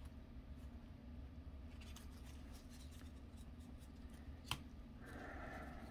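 Faint ticks and soft sliding of Panini Absolute football trading cards being moved through a stack in gloved hands, with one sharper click about four and a half seconds in.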